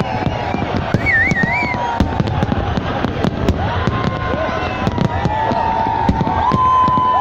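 A fireworks display going off: a rapid, continuous stream of bangs and crackles.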